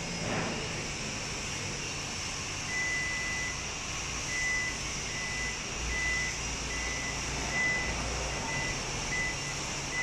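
Toyota Alphard power tailgate closing on its own: the door's warning buzzer beeps steadily, one longer beep and then short high beeps about two a second, over a low hum. A short knock comes just at the start.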